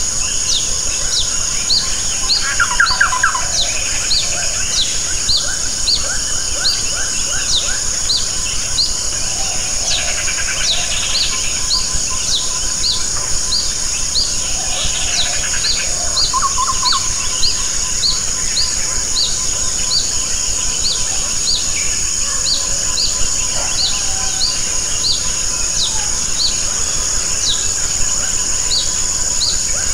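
Steady rain falling, with a steady high insect drone. A short high chirp repeats over and over, about one and a half times a second, and brief lower bird trills come in twice, a few seconds in and near the middle.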